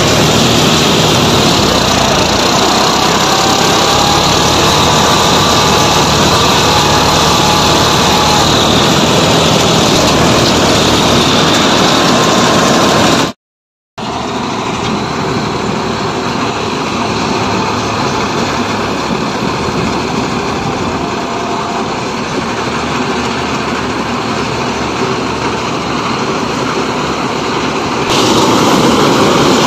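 Rice combine harvester built on a John Deere 5405 tractor, its diesel engine and harvesting machinery running steadily under load while cutting paddy. It is heard loud and close on board at first. After a brief dropout about 13 seconds in it is heard quieter from the field edge, and it is loud again near the end.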